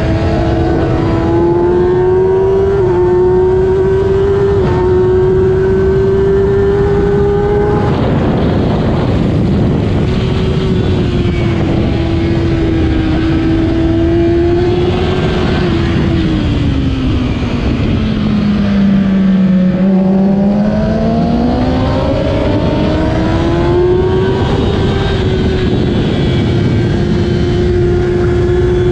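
2008 Kawasaki ZX-10R's inline-four engine racing at high revs with heavy wind rush. The revs climb through two quick upshifts in the first few seconds and hold high. About halfway through they fall away over several seconds as the bike slows for a corner, then climb again as it accelerates out and hold high near the end.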